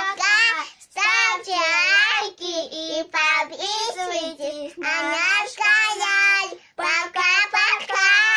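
A young girl singing a melody in a string of short phrases with brief pauses between them.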